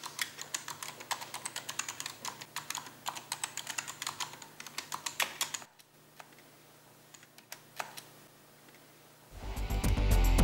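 Fast typing on a computer keyboard, a rapid run of key clicks that stops about five and a half seconds in, followed by a few scattered keystrokes. Music with a beat comes in near the end.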